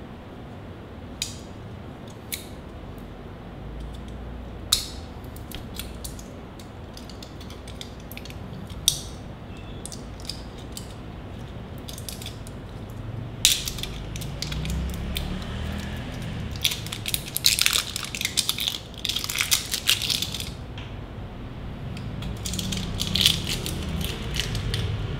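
Close-up handling of Eneloop Pro AA rechargeable batteries and their plastic packaging: a few sharp clicks and taps, then, about halfway through, long stretches of crackling plastic.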